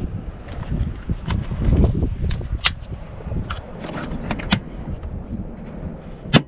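Latch clips on a 2008 Freightliner Century's engine air filter housing being snapped shut: a series of sharp, irregular clicks and knocks, the loudest near the end, over a low rumble of wind on the microphone.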